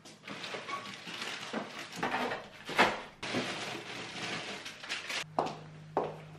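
Shopping bags and packaging rustling while groceries are handled and set down, with several light knocks. A low steady hum starts about five seconds in.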